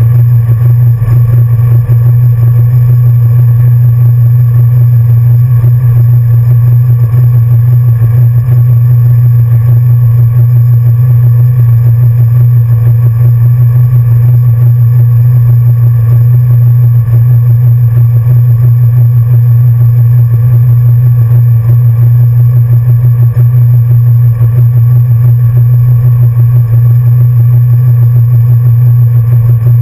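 1966 Ford Mustang's 347 stroker small-block V8 idling loudly and steadily, heard from inside the cabin.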